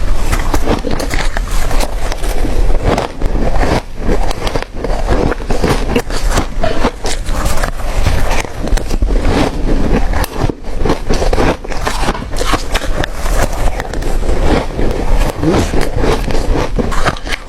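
Close-miked crunching of ice being bitten and chewed: a dense, unbroken run of crisp cracks and crackles.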